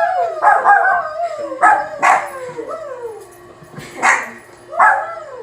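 Pet dog barking and howling excitedly: long calls that slide down in pitch, broken by several sharp barks and yips.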